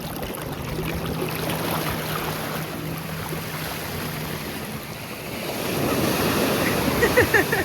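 Ocean surf washing in, with wind buffeting the microphone. A low, steady motorboat engine hum runs under it for the first few seconds, and the surf grows louder about five and a half seconds in.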